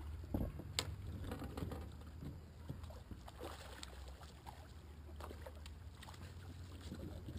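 Knocks and bumps on a fishing boat's deck as an angler stands and plays a hooked crappie beside the boat, with a sharp knock about a second in, over a steady low hum.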